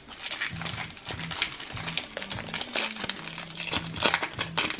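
Foil trading-card pack wrapper crinkling in the hands as it is opened and the cards are pulled out: a run of quick crackles, with background music underneath.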